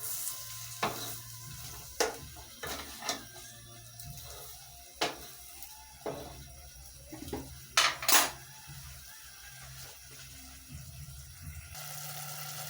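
A metal spoon clinking and scraping against a cooking pot as rice is stirred, about a dozen irregular knocks, the loudest two close together about eight seconds in.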